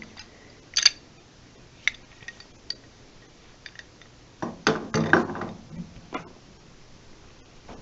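Scattered metallic clinks and knocks of tools and metal plumbing parts being handled: a sharp clink about a second in, a few light ticks, then a short burst of clatter past the halfway mark.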